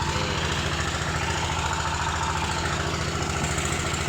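An engine idling steadily, with an even, rapid pulsing throb.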